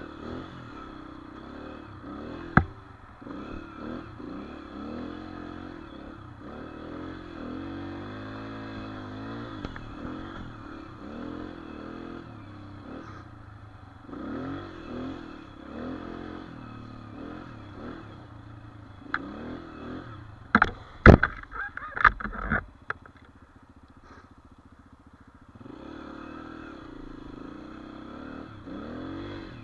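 Dirt bike engine revving up and down while riding, with a sharp knock about two and a half seconds in and a cluster of loud clattering knocks about two-thirds of the way through. After the knocks the engine runs low and quiet for a few seconds before revving again.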